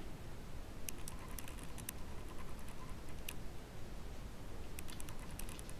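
Light, scattered clicks and scratches of young kittens' claws and paws catching on a fabric blanket as they wrestle, in a few short clusters.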